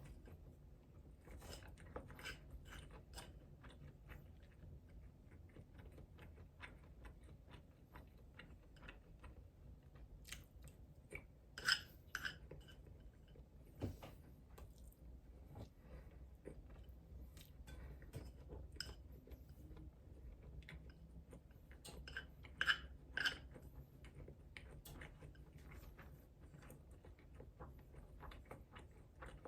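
A person chewing food close to the microphone: a run of small, irregular mouth clicks. Twice, about a third of the way in and again about three quarters through, there is a short cluster of louder clicks.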